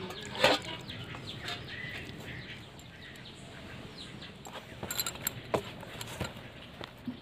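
Hands kneading wheat-flour dough in a steel bowl: soft squishes and a few sharp knocks against the metal, the sharpest about half a second in and again around five seconds in. Clucking in the background.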